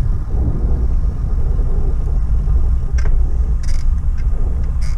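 Wind buffeting the microphone of a camera riding on a moving bicycle: a steady, loud, low rumble, with a few short rattling clicks about three, three and a half and five seconds in.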